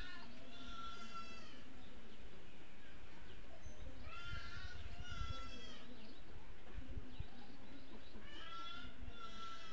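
Chicken calling in three bouts of drawn-out, high-pitched squawks, about four seconds apart, one at the start, one in the middle and one near the end. Low rumble and thumps of wind or handling on the microphone run underneath.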